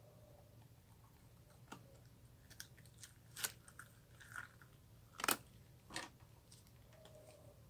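Glossy slime being worked by hand, giving a scatter of irregular clicks and pops, the loudest about three and a half and five seconds in.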